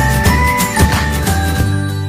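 Background music with a steady beat and a held melody.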